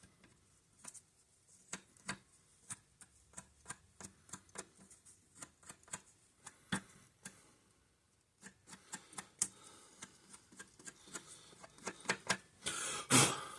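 Light, irregular clicks and taps, about two or three a second, from a steel bowl gouge being worked against a leather strop, with a short louder rustling scrape near the end.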